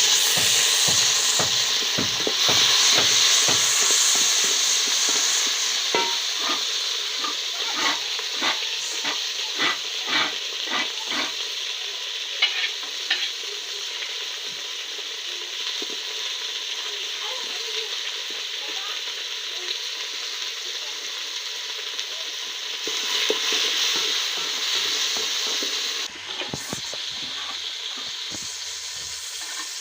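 Food frying in a pot with a steady sizzle, stirred with a spoon that knocks and scrapes against the pot many times during the first half. The sizzle swells again later and then drops suddenly.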